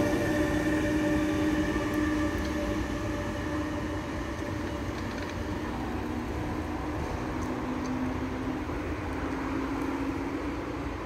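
Train passing and moving away: a steady whine of several tones over a rumble, slowly fading.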